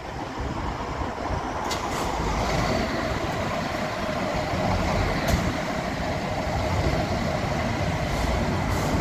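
Fire pumper's diesel engine running in the station bay, growing louder over the first couple of seconds and then holding steady. A few brief, sharp high noises come over it.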